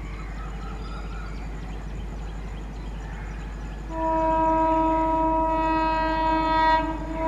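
An Indian Railways electric locomotive approaching with a steady rumble, then sounding one long horn blast about four seconds in that lasts nearly three seconds and starts again right at the end.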